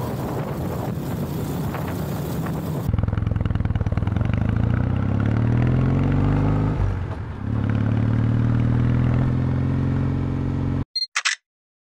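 Wind noise from a moving motorcycle, then the Kawasaki W650's air-cooled parallel-twin engine under acceleration: its pitch rises, drops at a gear change about seven seconds in, and rises again. The sound cuts off abruptly near the end, followed by a brief high blip.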